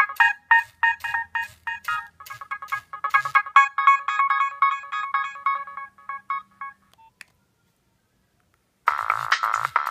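Nokia 3595 mobile phone ringtones playing from the phone's speaker: an electronic melody over a regular beat ends about seven seconds in, a single click follows, and after a short pause of near silence a denser, louder ringtone starts near the end.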